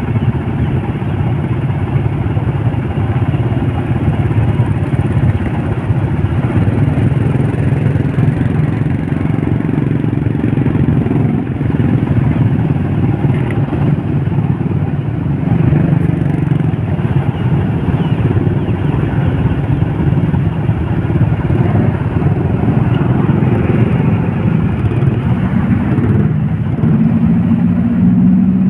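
Motorcycle engine running close by in slow, congested traffic, its pitch shifting with the throttle and stepping up near the end, over the steady noise of other vehicles.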